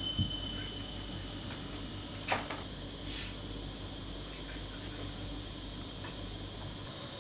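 Quiet room tone with a steady low hum. A ringing tone fades out during the first second, and there are two brief soft noises about two and three seconds in.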